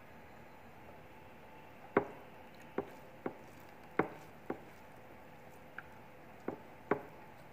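Eating by hand, rice with fried puti fish: about seven sharp clicks and crunches, irregularly spaced, over a faint steady room hiss.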